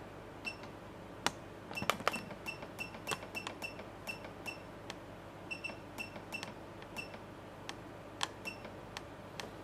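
Keypad of a Kernel UV therapy unit beeping with each button press: a rapid run of short, high, same-pitched beeps as the treatment timer is stepped up a second at a time. A few sharper clicks come about two seconds in.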